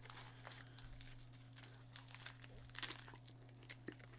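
Faint crackling of crisp, dry nori seaweed as a beef onigiri rice ball is bitten and chewed, scattered small crunches with the loudest about two and three seconds in. A steady low hum runs underneath.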